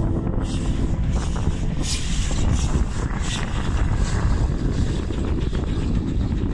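Steam locomotive, the Flying Scotsman, running past, heard as a steady rumbling noise with irregular sharper beats above it, and wind buffeting the microphone. A background music track fades out about half a second in.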